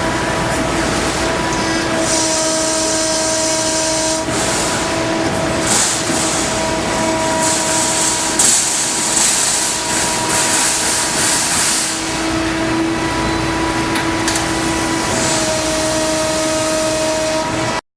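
Salvagnini L3 fiber laser cutter running: a steady hiss with several held whining tones that come and go, and louder bursts of high hiss. The sound cuts off abruptly near the end.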